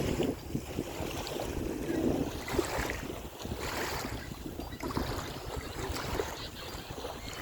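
Waves washing on the shore with wind gusting on the microphone, the sound swelling and easing every few seconds.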